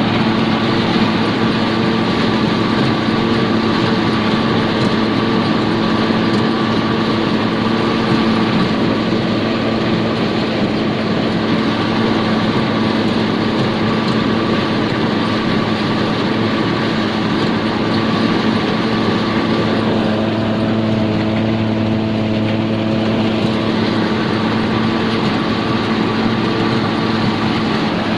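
Corn harvesting machine running steadily, its engine and machinery giving an even, loud hum. The tone shifts briefly about twenty seconds in.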